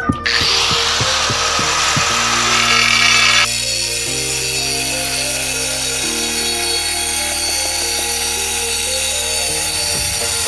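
Angle grinder with a cutting disc slicing through a white ceramic floor tile along a marked line, running steadily; the high hiss of the cut eases a little after three seconds in. Background music with held chords plays underneath.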